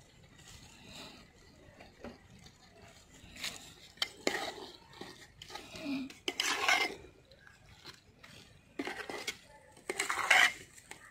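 A long metal spoon stirring a thick gravy in a metal cooking pot, scraping and clinking against the pot's sides and bottom in an irregular run of strokes, loudest about six and ten seconds in.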